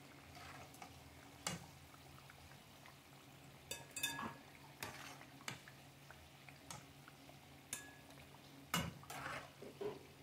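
Slotted metal spatula clinking and scraping against a stone-coated frying pan as banana pancakes are lifted out of hot oil, about ten sharp irregular clinks with the loudest near the end. A faint steady sizzle of deep-frying runs underneath.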